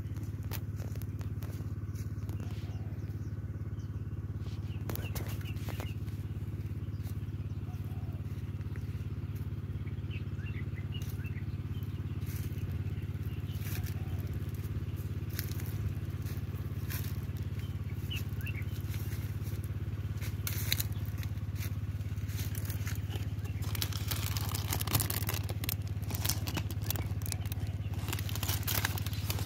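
A motor runs with a steady low drone. Over it, near the end, the white fruit-wrapping bags on the water apple branches rustle and crackle as they are handled close by.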